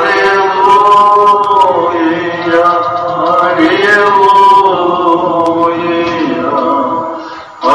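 An Orthodox priest singing solo in chant style: one long, slow phrase of held notes that glide gently up and down, with a breath near the end.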